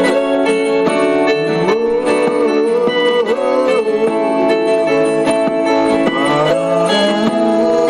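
Music: a guitar-led instrumental break in a song, with a melody whose notes bend and slide in pitch over steady accompaniment.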